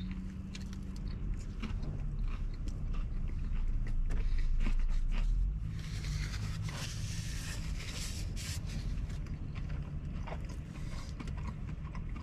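A man bites into a crunchy chicken sandwich and chews it, with crunching mouthfuls throughout.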